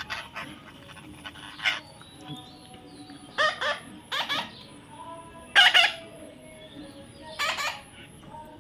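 Young parrot giving short, harsh squawking calls, about six in all, one every second or two.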